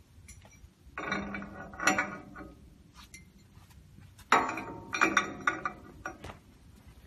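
Steel scaffolding screw jack parts clanking and rattling against each other in two spells a few seconds apart, with ringing metallic clinks.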